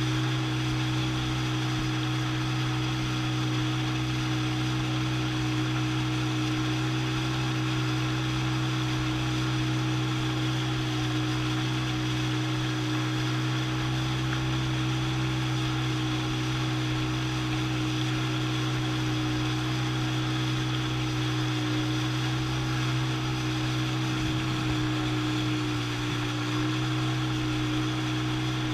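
Jet ski engine running at a steady cruising speed, a constant drone with water rushing along the hull. The pitch shifts slightly near the end.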